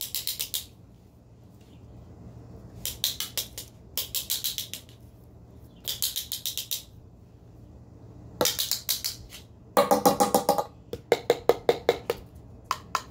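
A spoon clicking rapidly against a cup in short bursts of quick strokes, about seven or eight a second, with pauses between bursts; the loudest, most ringing run comes near the end.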